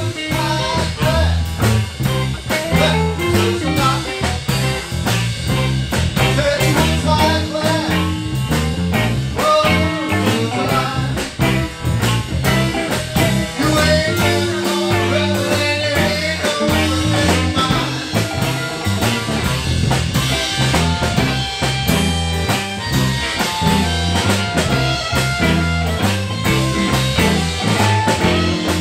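Live blues band playing an instrumental shuffle: drum kit, bass and electric guitar, with harmonica.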